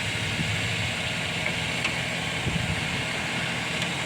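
2007 GMC truck engine idling, with a constant whine from the lower front of the engine, which the owner suspects is the harmonic balancer or the water pump.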